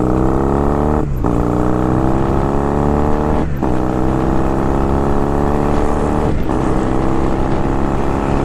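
Honda Rebel 250 (CMX250C) motorcycle's parallel-twin engine pulling away and accelerating. Its pitch rises steadily, with short breaks for gear changes about a second in, about three and a half seconds in, and again past six seconds.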